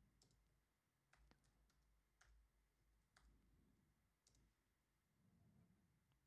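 Near silence, with a few faint, isolated computer keyboard key clicks about a second apart as code is typed.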